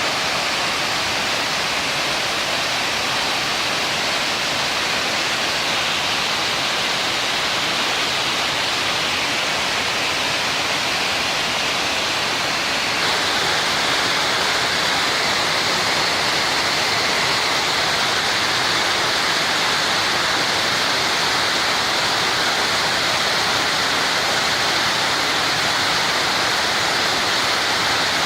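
Waterfall rushing steadily, a continuous roar of falling water that turns a little louder and hissier about halfway through.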